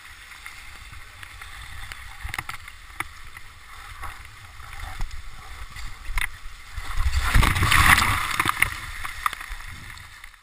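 Waterfall rushing, heard up close during a rappel down it, with scattered clicks and knocks. Between about seven and nine seconds in, louder splashing as the descent goes into the falling water, then it fades.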